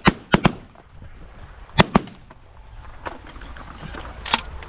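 Several shotguns firing in a volley: three shots in quick succession at the start, two more just under two seconds in, and a single shot near the end.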